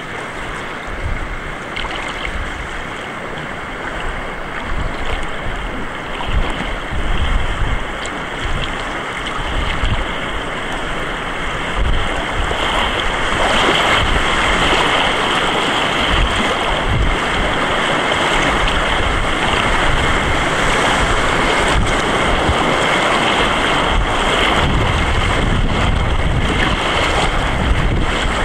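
River water rushing and splashing around an inner-tube raft, getting louder about halfway through as it runs into rougher water, with wind buffeting the microphone.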